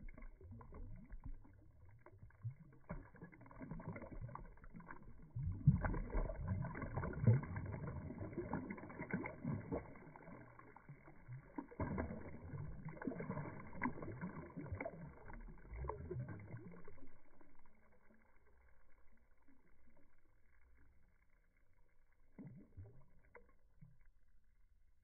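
Water sloshing and splashing around a big carp held by the tail in the shallows as it thrashes, in irregular splashes that are busiest in the middle and thin out to a few faint ones after about seventeen seconds.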